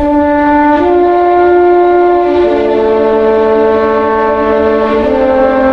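Background music of long held wind-like notes, several sounding together, moving to new pitches every second or two.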